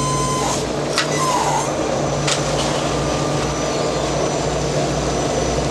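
Fishing vessel's engines and hydraulic deck machinery running with a steady low drone, as the crane works the brail net during sardine loading. Two short sharp knocks come about one and two and a half seconds in.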